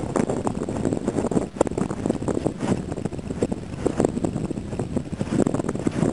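A dog digging in loose beach sand, its front paws scraping and flinging sand in quick, irregular strokes, with wind buffeting the microphone.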